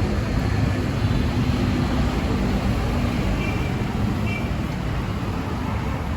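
Busy city street traffic, a steady rumble of passing motorbike and car engines.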